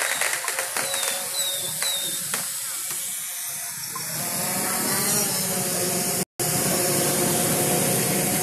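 Aerial fireworks crackling: a rapid run of sharp pops and cracks over the first few seconds, giving way to a steady hissing crackle.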